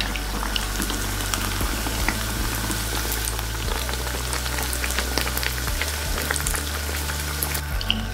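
Puff-pastry apple pie deep-frying in hot vegetable oil: a dense, steady crackle of many small bubbling pops.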